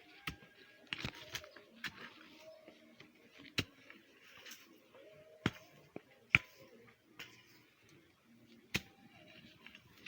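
Hand hoe striking soil while a garden bed is tilled: seven sharp, irregular knocks, one every second or two, the loudest about six seconds in.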